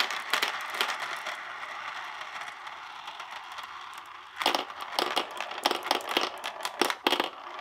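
Many glass marbles rolling round a plastic funnel bowl of a marble run: a steady rolling rush with small clicks that slowly fades. From about four and a half seconds it turns into a run of sharp clacks as the marbles bunch together and drop through the centre hole.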